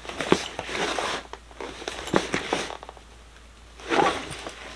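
Fabric makeup bags and a travel case being handled and zipped, irregular rasping zipper and rustling sounds with a short quieter pause a little past the middle.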